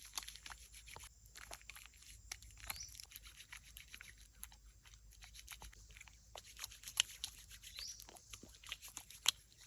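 Faint, irregular crackling and clicking from close handling of something, with a short high rising chirp twice.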